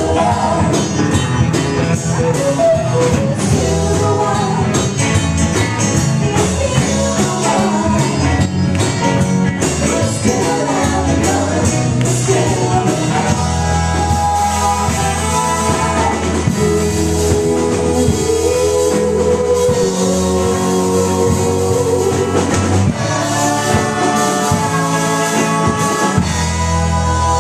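Live band playing: sung vocals over amplified guitars and bass, with a sharp percussive beat through the first half.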